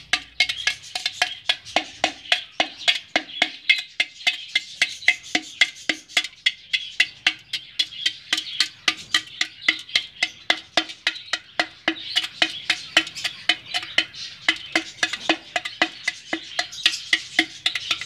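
An iron rod tapping against the side of an unglazed clay pot, chipping out a hole in the terracotta. Quick, steady taps, about three a second, each with a short ringing note from the pot.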